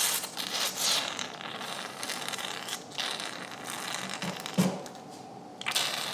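Surgical suction tip drawing blood and fluid out of a dog's opened nasal cavity, a harsh hissing slurp that breaks off briefly about three seconds in and again for about a second near the end.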